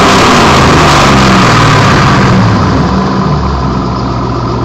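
2005 Mustang GT's 4.6-litre V8 running hard through a Flowmaster Outlaw Series exhaust with an off-road H-pipe, a loud deep drone with a rasp on top that eases off about two and a half seconds in. Really loud, with the catalytic converters taken out by the off-road pipe.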